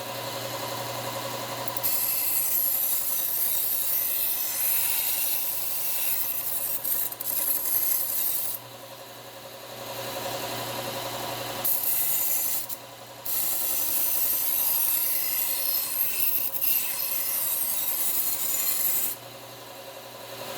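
Bucktool slow-speed bench belt sander running with a steady hum while a knife blade is ground against the moving belt. The grinding hiss comes in several passes, starting about two seconds in, with short breaks where the blade is lifted.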